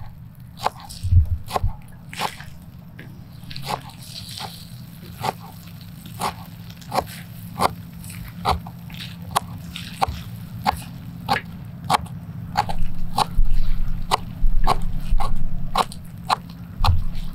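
Kitchen knife chopping leafy purple herbs on a wooden cutting board: repeated sharp knocks of the blade striking the board, about two a second.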